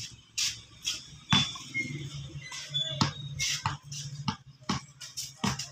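Basketball being dribbled on a concrete court: a string of sharp, unevenly spaced bounces.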